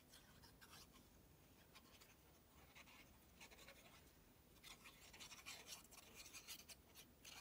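Faint scratching of a fine-tip glue bottle's applicator drawn across cardstock as glue is laid in lines, the strokes growing more frequent in the second half.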